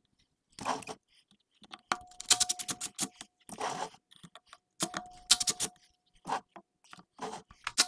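Powered screwdriver running in reverse in three short bursts, each a rapid hammering clatter over a steady whine, backing out the Phillips screws of an e-bike rear hub motor's cover. Short scrapes and handling noises fall between the bursts.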